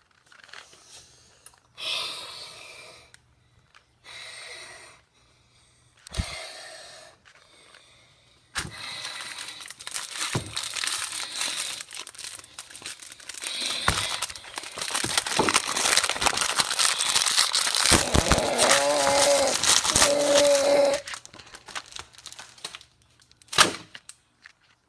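Packaging crinkling and tearing: a few short bursts at first, then a long stretch of dense crackling and rustling. A couple of brief pitched sounds come near the end of it, followed by a single sharp click.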